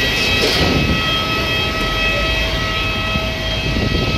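Jet airliner running on the ground: a steady rushing noise with a high whine made of several steady tones.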